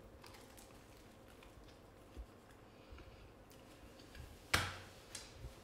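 Faint chewing of a bite of Neapolitan pizza, with a few small scattered clicks, and one short louder noise about four and a half seconds in.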